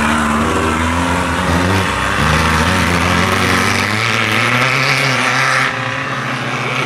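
Off-road race buggy engines revving hard, the pitch rising and falling as they change gear. About two-thirds in the sound drops and the engine sounds more distant.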